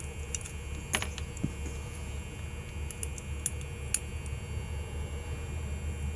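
A few light, sharp clicks and taps, the loudest about a second in and the last about four seconds in, over a steady low hum.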